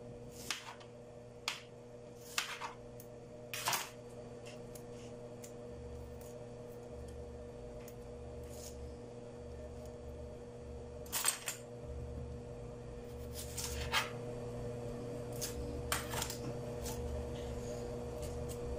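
Onion being halved with a kitchen knife and peeled by hand: scattered sharp clicks and taps from the knife and the dry onion skin, over a steady low hum.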